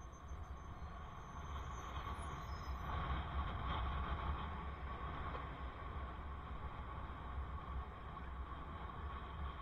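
Wind noise on a bicycle helmet camera's microphone while riding: a steady low rumble with a hiss above it, a little louder about three seconds in.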